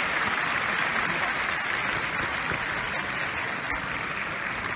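Arena audience applauding: a steady, even wash of clapping that slowly dies down.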